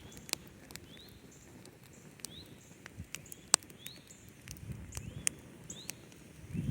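Wood campfire crackling, with scattered sharp pops and snaps at uneven intervals. A faint short rising chirp repeats about once a second in the background.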